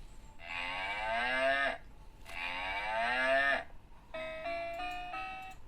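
Cow mooing twice, each moo long and drawn out, played as the sound for a children's guess-the-animal game. It is followed by a short jingle of electronic chime notes stepping upward.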